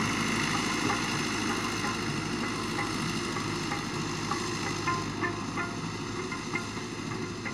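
Fiat 640 tractor's diesel engine running steadily under load as it pulls a disc harrow through sand, slowly fading as the tractor moves away, with faint scattered ticks.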